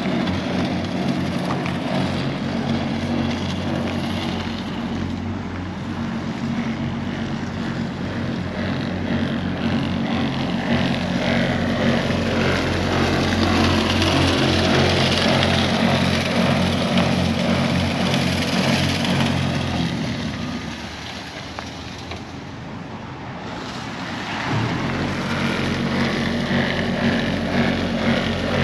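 Truck engine running steadily while a salt spreader throws salt, with a hiss over the engine. About twenty seconds in the engine fades for a few seconds, then comes back.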